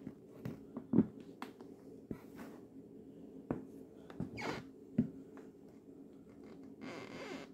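Nike Air Max sneakers stepping on a wooden floor and pressing down on a bread roll: a few sharp taps of the soles on the floorboards, with short soft rustling scrunches as the bread is squashed underfoot.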